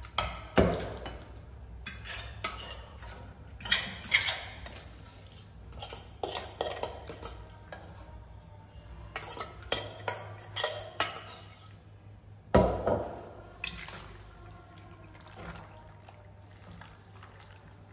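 A metal spoon scraping and clanking against stainless steel pans as cooked pasta is scooped from a saucepan into a pot and stirred. The clinks come irregularly, with a loud knock just after the start and another about two-thirds of the way through.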